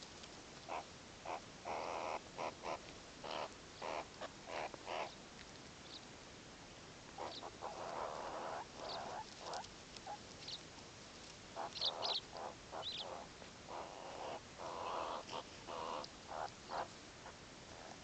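A group of meerkats grooming each other and huddling together close to the microphone: an irregular run of short, soft, scratchy sounds and small calls, coming in clusters of several a second.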